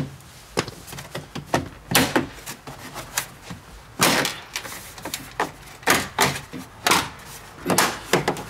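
Plastic trim panel around the Tesla Model X liftgate glass being pulled off by hand: about a dozen sharp clicks and snaps at uneven intervals as its retaining clips let go.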